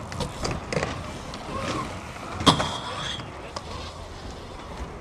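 BMX bike riding a wooden vert ramp: tyres rolling on the plywood with scattered knocks, and a sharp clank about two and a half seconds in followed by a short ring.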